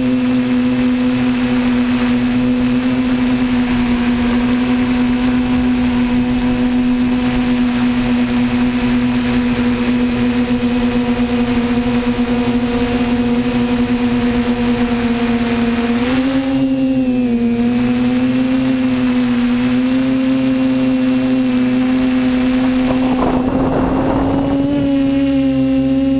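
Multirotor camera drone's motors and propellers whining steadily in flight. The pitch dips and wavers briefly about two-thirds of the way through as the motors change speed. Near the end there is a short rush of noise.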